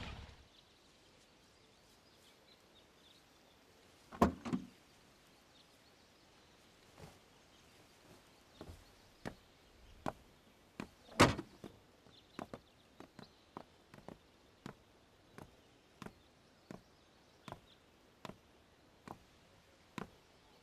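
A car door clunks twice about four seconds in, then shuts with a single loud thud about eleven seconds in. It is followed by a steady run of footsteps, roughly one or two a second.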